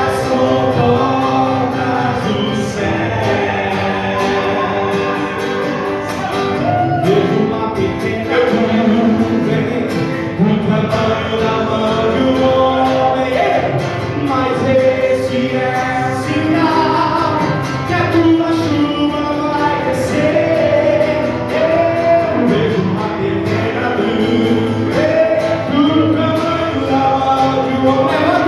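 Gospel worship song: several voices singing together over instrumental accompaniment.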